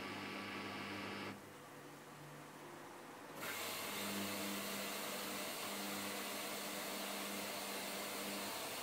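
Samsung washing machine running with a steady hum. About a second and a half in the sound drops away for two seconds, then comes back louder with a hiss added.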